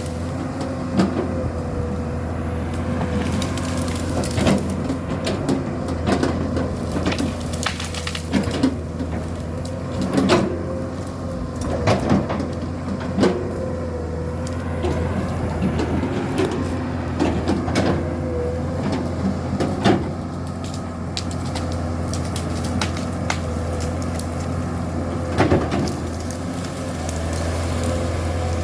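Komatsu PC200-7 excavator's diesel engine running steadily under working load with a hydraulic whine, over irregular sharp cracks and knocks from the work.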